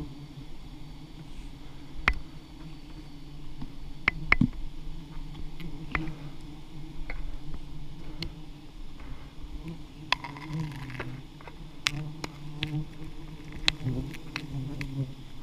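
Swarm of giant honeybees (Apis dorsata) buzzing around a wild comb being harvested: a continuous wavering drone that swells and fades. Scattered sharp clicks and knocks sound over it.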